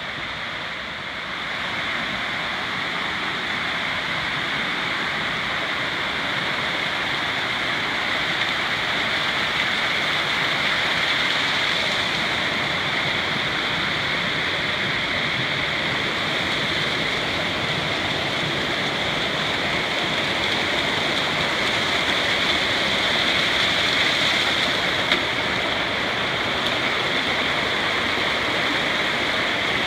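Mountain creek rushing over rocks in small white-water cascades, a steady rushing noise that grows louder about two seconds in as the microphone nears the water.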